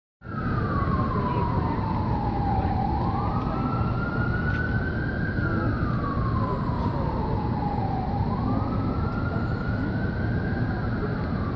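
Emergency vehicle siren sounding a slow wail, its pitch gliding down over about three seconds and back up over about two, twice through, over steady low street noise.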